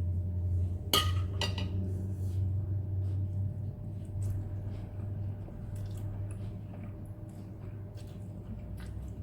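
Eating utensils clinking against a noodle bowl, with a sharp clink about a second in and a second one just after, then lighter scattered taps, over a steady low hum.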